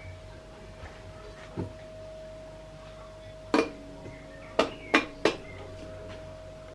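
Sharp metallic clinks and knocks of tools or metal parts being handled, each with a brief ring: one about a second and a half in, then four in quick succession in the second half. A faint steady high hum runs under them.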